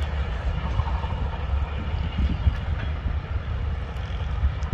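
Train running on the track: a steady low rumble of wheels and carriages with a few faint clicks.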